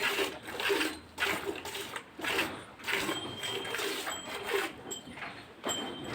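Cow being hand-milked: jets of milk squirting into a pail in a steady rhythm of about two swishes a second.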